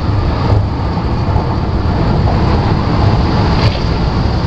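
1996 Jeep Grand Cherokee ZJ drivetrain running, heard from underneath at the transfer case: a loud, steady, low rumble. This is the drivetrain being checked for a grinding noise.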